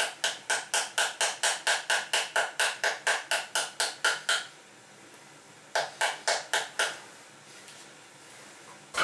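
Half a pomegranate held cut side down in the hand and tapped on its rind with a spoon to knock the seeds out: a fast, even run of knocks, about five a second for about four seconds, then a shorter run of about six knocks and one last knock near the end.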